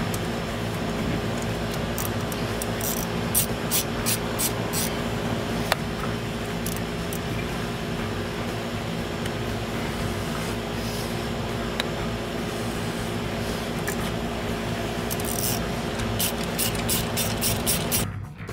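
Hand tools clicking and scraping on engine parts, a scatter of light clicks with bursts of them, over a steady background hum that cuts off suddenly near the end.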